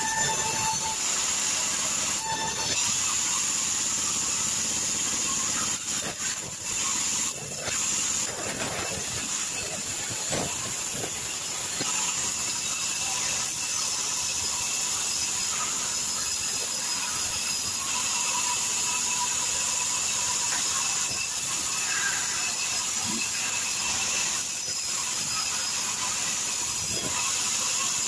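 Sawmill band saw running steadily and cutting a log into boards, a continuous high hiss with a thin whine over it. The level dips briefly a few times partway through.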